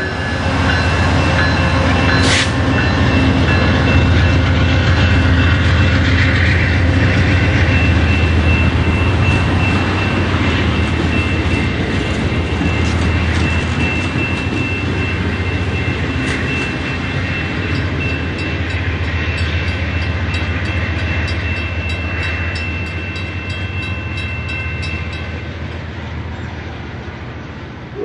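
Amtrak bilevel passenger cars rolling past on steel wheels, with a steady low rumble and a thin high whine, and a sharp click about two seconds in. The sound fades gradually as the last car pulls away.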